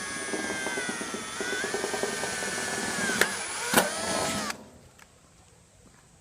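Power drill running steadily as it bores a pilot hole through a metal column cover, its motor whine dipping slightly under load. Two sharp clicks come near the end, and the drill stops about four and a half seconds in.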